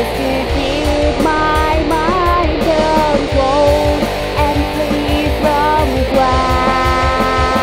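Background rock song with guitar and a singing voice over a steady drum beat.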